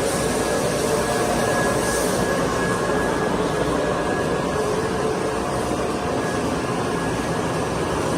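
52-inch wide belt sanding and edge-rounding machine for metal parts running steadily, its sanding belts, rotary brushes and vacuum hold-down motor giving an even mechanical roar with a faint high whine over it.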